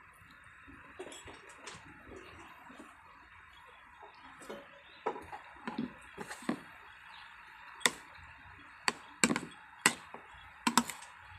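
Metal spoon clinking and scraping against a plate while scooping up rice and eggs: sharp clinks come in the second half, several close together near the end, over a steady background hiss.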